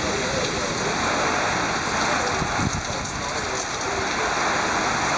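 Heavy rain falling in a thunderstorm, a steady dense hiss of rain on surfaces.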